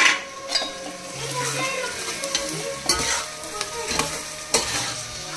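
Sliced onions and green chillies sizzling in hot oil in an aluminium pot while a metal spoon stirs them, the spoon clicking and scraping against the pot now and then. A loud burst of sizzling comes right at the start.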